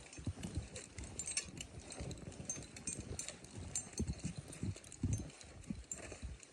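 Irregular soft thumps and light clicks of climbing rope and gear being handled at the harness while tying in.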